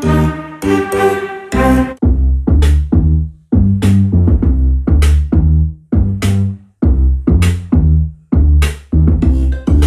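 Bass-heavy electronic song played loud through a Sony HT-S20R 5.1 home theatre system: held synth chords at first, then about two seconds in a drum-machine beat with deep bass notes about twice a second.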